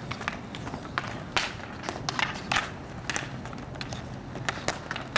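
Roller hockey play: a string of sharp, irregular clacks of hockey sticks striking the puck and the court, over the steady low rumble of inline skates rolling on the asphalt court.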